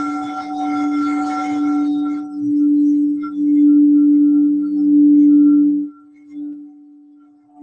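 Crystal singing bowls, an E and a D-sharp bowl, being played with a mallet: a steady low hum that swells and ebbs in waves. A shimmering higher ringing sits over the first two seconds. The hum falls away about six seconds in, with one brief soft swell after.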